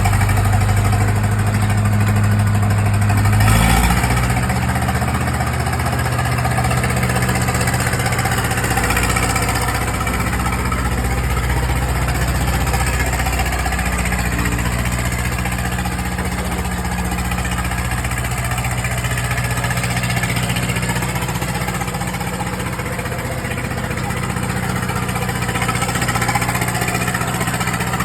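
Caterpillar 951 track loader's diesel engine running steadily. About four seconds in, its note steps down slightly as the revs drop, then it settles back into a steady run.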